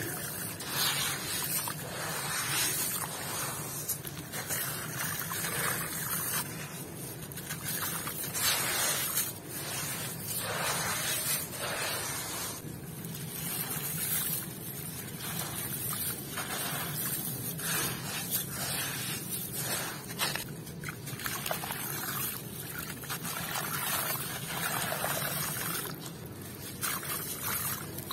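Hands crumbling clumps of sand-cement mix, the grit and fine gravel pouring and trickling down into a shallow puddle. It makes a continuous gritty hiss full of small crackles that swells and eases as each handful breaks up.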